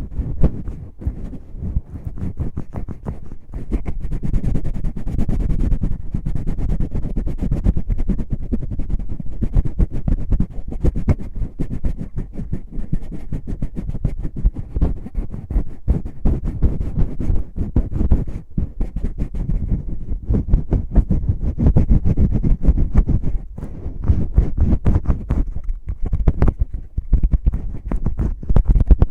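Fingers scratching, rubbing and tapping right on the microphone, as in finger ear-cleaning ASMR. The strokes come quickly and without pause, with low, muffled thumps under the scratching.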